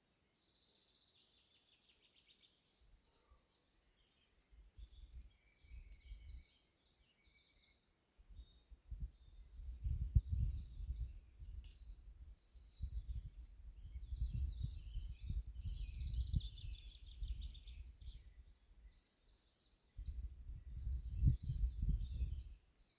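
Songbirds singing, with repeated chirps and trills, over an uneven low rumble on the microphone that comes in gusts from about four seconds in and grows louder after about nine seconds.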